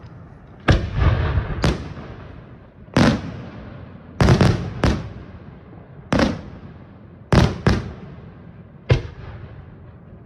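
Fireworks going off in a series of about nine loud bangs at uneven intervals, two of them in quick pairs, each trailing off in echo.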